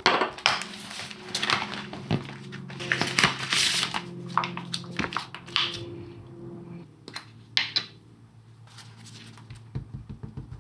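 Clear plastic stamps and a plastic ring-binder sleeve being handled: irregular crinkling and rustling of thin plastic with light clicks and knocks, busiest in the first few seconds and quieter after about seven.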